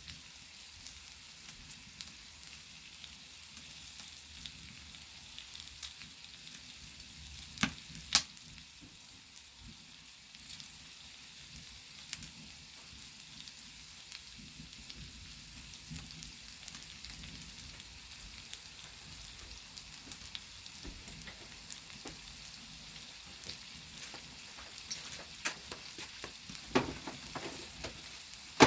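Meat sizzling steadily on a hot flat stone set over a wood fire, with scattered sharp pops of spitting fat, two loud ones about eight seconds in and more near the end.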